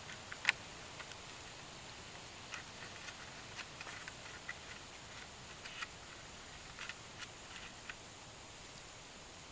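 Small scattered clicks and scratches of hands binding a bamboo rail to a bamboo fence post, with one sharper click about half a second in, over a steady faint hiss.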